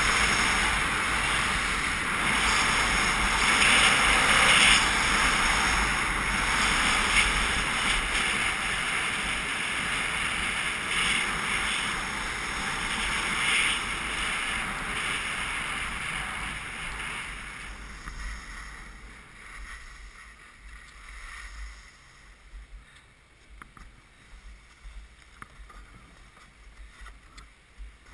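Skis sliding and scraping over packed snow, with wind rushing past a GoPro's microphone. The rush fades over the last ten seconds as the skier slows down, leaving faint scrapes and clicks.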